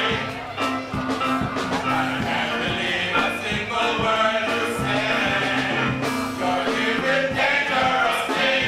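Music with singing voices over a steady beat.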